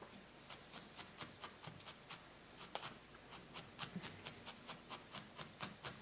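Felting needle stabbing wool into a burlap-covered felting pad: a run of soft, quick pokes, about four a second, with one sharper click a little under three seconds in.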